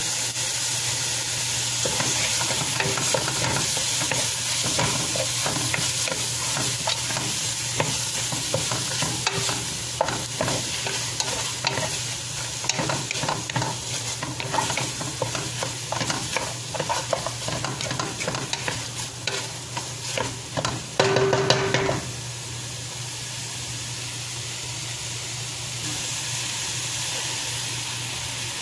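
Chicken, onions and spice frying in a metal pot with a steady sizzle, stirred with a wooden spatula that scrapes and knocks against the pot. About 21 seconds in comes a brief louder scrape with a ringing tone, after which the stirring stops and only the even sizzle goes on.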